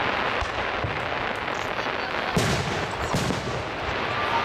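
Aerial fireworks shells bursting: two loud booms under a second apart about halfway through, with smaller reports scattered around them, over a steady background noise.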